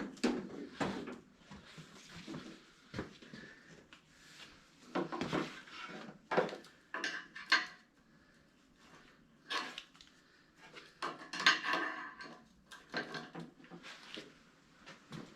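Irregular clanks, clatters and scrapes of tools and metal parts being handled and set in place, some with a short metallic ring.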